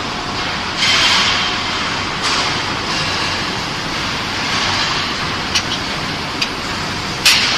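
Steady noise of factory machinery, with bursts of rustling as plastic protective film on aluminium profiles is handled. A few sharp clicks come late on, the loudest near the end.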